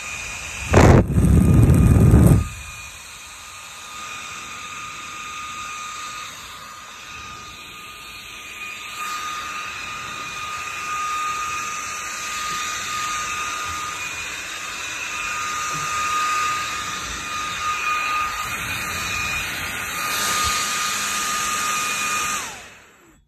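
HP BladeCenter c7000 server fan running at high speed as a handheld blower: a steady high whine over rushing air. About a second in, loud rumbling buffeting as the blast hits the microphone. The level rises and falls as it is moved about, then it fades out near the end.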